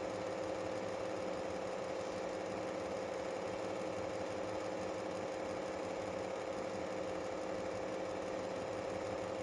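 Steady machine hum holding one constant mid-pitched tone, with no change in level.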